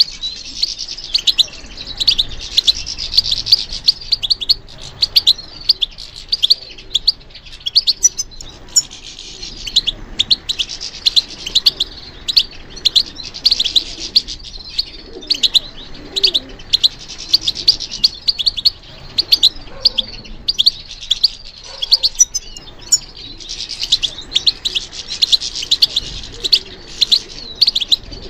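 European goldfinch singing: a fast, continuous twittering song of sharp chirps and trills, with short pauses between phrases.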